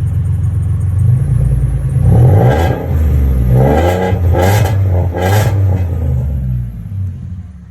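2015 Ford Mustang's 3.7-litre V6 through an aftermarket Roush exhaust, idling and then revved about four times in quick blips before settling back toward idle.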